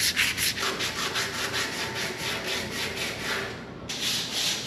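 80-grit sandpaper worked by hand over a fire-damaged go-kart's steel tube frame, quick back-and-forth strokes about four a second. The strokes break off briefly about three and a half seconds in, then start again.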